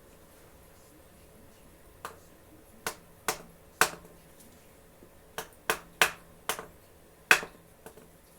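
Hammer tapping a seal-installer tool to drive a new front crankshaft oil seal into an Audi 2.8 engine's front cover: about ten sharp, irregular blows with a short ring after each, starting about two seconds in.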